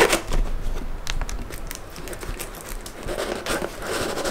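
A taped cardboard parcel being handled and cut open: irregular rustling, crinkling and small clicks of cardboard and packing tape, busier near the end.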